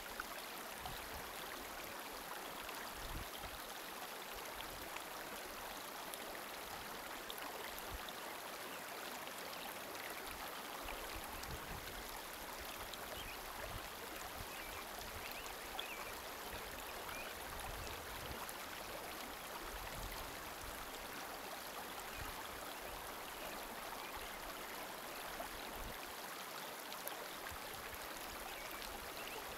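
Steady rush of flowing water, like a stream, with a few soft low bumps now and then.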